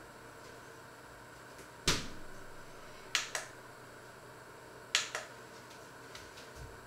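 Kitchen handling noises: one sharp knock with a short ringing tail, then two pairs of quick clicks a couple of seconds apart.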